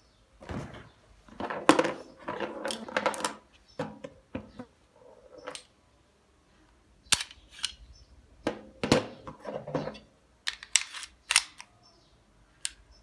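Sharp metallic clicks and clacks of a 30 bore (7.62×25 mm Tokarev) TT-type pistol's action being worked by hand, in clusters with short scraping runs between them.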